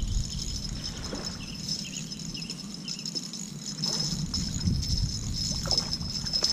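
Steady high-pitched insect buzz, with wind rumbling on the microphone at the start and again about four to five seconds in.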